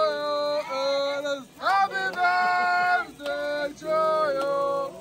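Singing: a melody of long held notes that glide from one pitch to the next, with short breaks between phrases.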